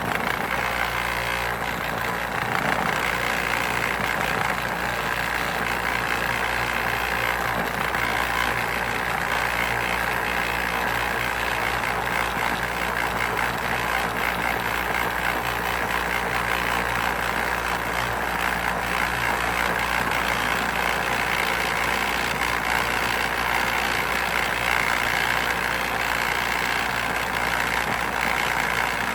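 A motor running steadily at an unchanging speed.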